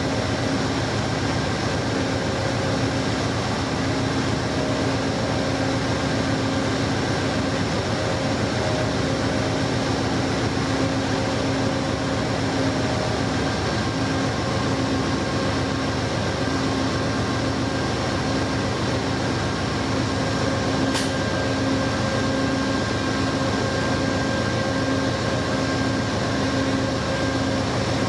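Steady interior noise of an Amtrak Superliner passenger coach: an even rumble with a constant hum, the car's air conditioning and the running train. A single sharp click sounds about three-quarters of the way through.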